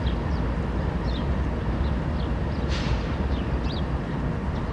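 CN diesel locomotives running with a low, steady rumble, while small birds chirp faintly and repeatedly over it.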